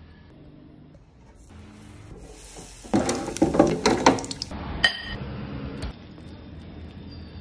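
Crackling and clattering for about a second and a half, then one ringing clink of crockery.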